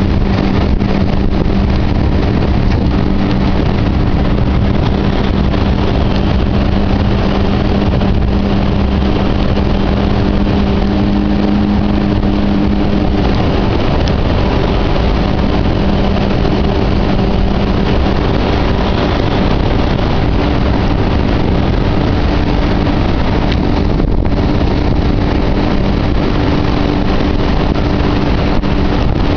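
Yamaha 60/40 outboard jet running steadily under way on a jet boat, a continuous engine drone whose pitch shifts slightly about halfway through, over the rush of water and wind.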